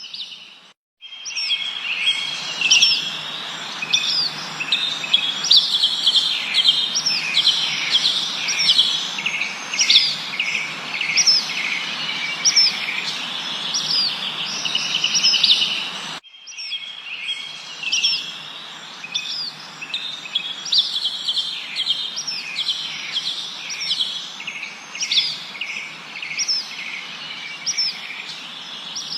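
Many birds chirping and singing at once, short repeated calls and quick rising and falling notes overlapping, over a steady background hiss. The sound drops out briefly about a second in and cuts off sharply and restarts a little past halfway, as a looped recording would.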